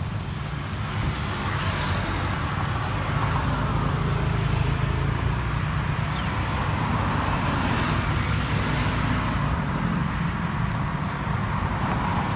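Steady road traffic noise from passing cars, growing a little louder over the first two seconds and then holding.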